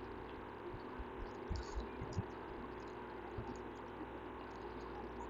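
Steady low background hum of the recording with a few faint soft thumps and small clicks, about one to three seconds in and again near the end.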